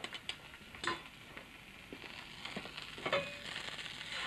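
A fork clicking against a bowl as eggs are beaten, over the sizzle of butter heating in a frying pan. The sizzle grows louder near the end.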